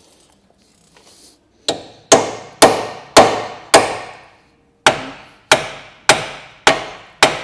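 Hammer blows on a steel socket, knocking it onto a seized 14 mm ball joint nut that the socket had slipped on. There are ten sharp ringing strikes, about two a second, in two runs of five with a short pause between them.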